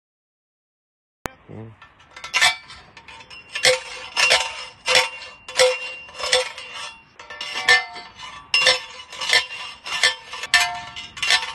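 Manual post driver, a heavy steel tube, lifted and brought down over a steel fence post: a steady run of ringing metallic clanks, about one and a half a second, starting about two seconds in.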